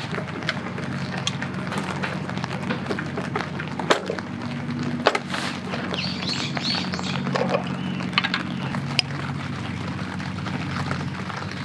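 Light rain pattering steadily, with scattered sharp taps and clinks as a glass bottle, a jar and a steel cup are set down and handled on a wooden camp table. A low steady hum runs underneath.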